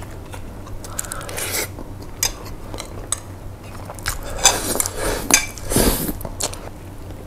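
Chopsticks clicking and scraping against a small ceramic bowl as noodles are shovelled into the mouth, with eating noises in between. The clatter and mouth sounds are busiest and loudest in the second half.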